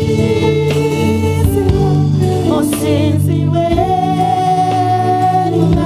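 Gospel song performed live by a group of singers over band accompaniment, with a long held vocal note in the second half.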